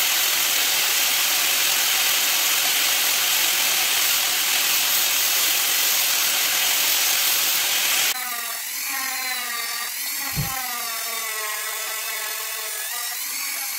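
Angle grinder with a sanding disc grinding an epoxy resin ring: a loud, even grinding noise. About eight seconds in it changes abruptly to a handheld rotary tool whining as its small bit works the ring, the pitch wavering under load, with one short low thump about ten seconds in.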